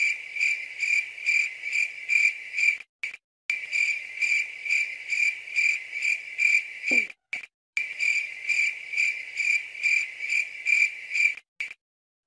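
Cricket-chirp sound effect: a steady high chirp pulsing about twice a second, broken three times by abrupt cuts to silence.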